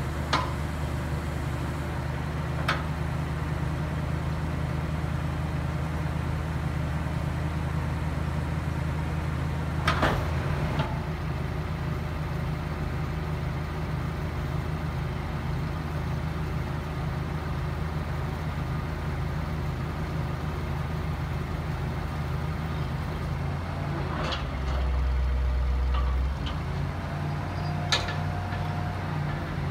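1988 Chevy C70 service truck's engine running steadily while its crane is worked, with a few sharp metallic clanks. About 25 s in, the engine's low hum swells for a second or so.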